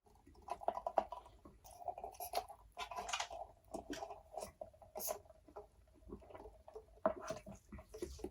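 Close-miked chewing and mouth sounds of a person eating fast food, with many short, irregular crackles and clicks throughout.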